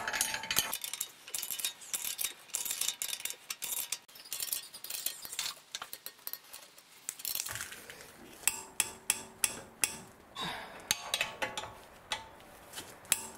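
Hand ratchet tightening the ball-joint nut on a front lower control arm, clicking in short runs with metal tools clinking against the fitting; the loudest run of sharp clicks comes a little past halfway.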